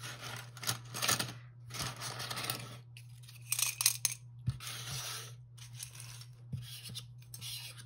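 Small lightweight plastic tarot charms clicking and clattering against each other and the tabletop as they are gathered up, with a plastic pouch rustling in several bursts during the first four seconds and scattered small clicks after.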